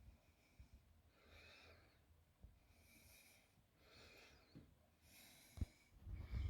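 Near silence, with four faint breath-like hisses about a second apart and a soft thump near the end.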